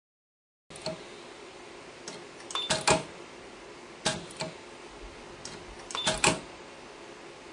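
Parallel-gap resistance weld head clicking as its electrodes press down and weld 40-gauge wire onto stainless steel disks: groups of sharp mechanical clicks every second or two, the loudest near three and six seconds in, over a steady low hum. The sound starts just under a second in.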